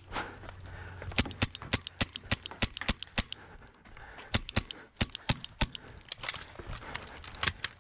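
Paintball markers firing: irregular strings of sharp pops, with a lull about three seconds in and thinner shots after about six seconds.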